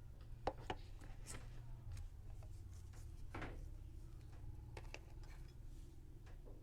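Eating and food-handling sounds: a few light clicks, short scrapes and a soft rub, spaced a second or two apart, over a low steady hum.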